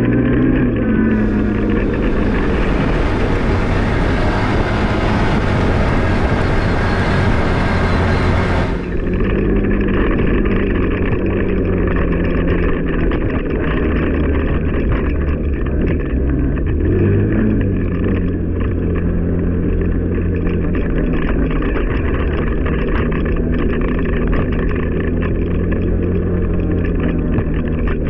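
ATV engine running steadily while riding, its pitch dropping near the start and rising and falling again about two-thirds of the way through. A hiss runs alongside it for the first eight seconds or so.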